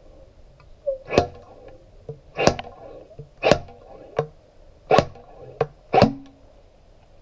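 Honda NTV 650 front fork's inner tube being yanked outward against its slider like a slide hammer, so that the bushing hammers the old oil seal and Teflon bushings out. Five sharp metal-on-metal clacks about a second apart, each with a short ring, and a few lighter knocks between them.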